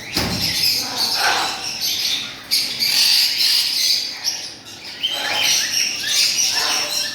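Many caged birds chirping together in a dense, unbroken chatter of overlapping high calls.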